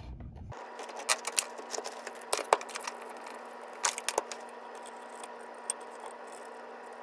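Scattered light clicks, taps and rattles as a small Positron LT 3D printer is set down and handled, its plastic parts, rails and power cables knocking against the desk. A few sharper knocks come at about 1, 2.5 and 4 seconds in, over a faint steady hum.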